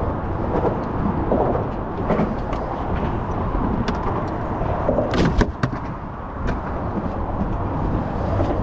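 A plastic ice chest lid on a boat is lifted and handled, giving a few sharp knocks and thuds about five seconds in, over a steady low rumble.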